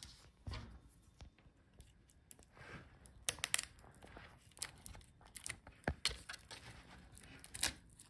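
Faint handling noises from laptop disassembly: scattered small clicks and crinkling rustles as a cable connector is pried loose from a motherboard with a tool and its foil shielding is handled.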